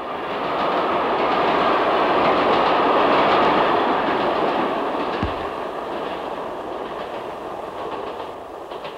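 A train rattling past, the sound swelling up over the first couple of seconds and then slowly dying away.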